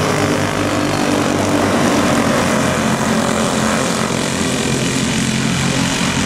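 Racing karts' small single-cylinder engines running at speed on a dirt oval, a loud steady drone.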